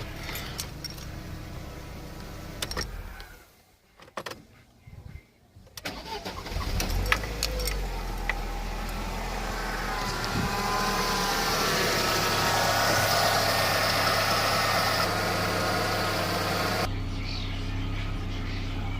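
Ford Mondeo Mk1 1.6 four-cylinder petrol engine running, going quiet about three seconds in, then starting again about six seconds in and idling. The owner calls this running rough and suspects the idle air control valve or the MAF sensor.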